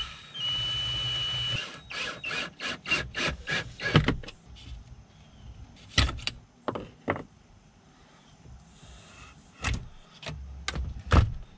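Cordless drill driving a screw into a wooden board: the motor runs steadily for just over a second, then a quick run of about nine clicks at four or five a second, typical of the drill's clutch slipping once the screw has seated. Several separate knocks and taps follow as metal parts are handled on the board.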